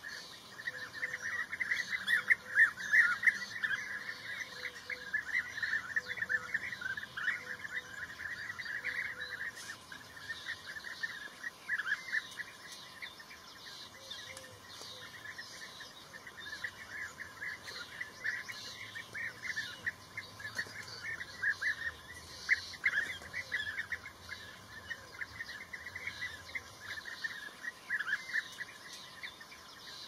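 Bee-eaters calling: a continuous stream of short, rapid chirps, densest over the first ten seconds or so.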